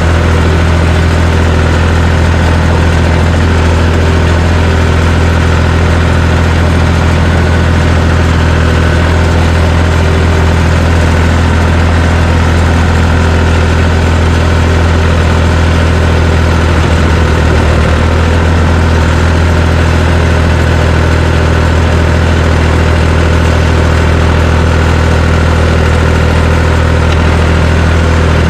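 John Deere 350 crawler dozer's diesel engine running steadily at a constant speed, a loud, even low hum with no revving.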